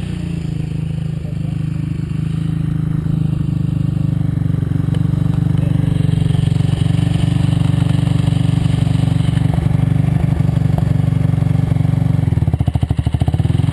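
An off-road vehicle's engine idling steadily, a constant low hum that turns a little uneven near the end.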